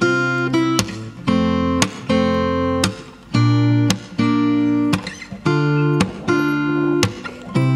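Background music: an acoustic guitar strumming chords, the chord changing every second or so.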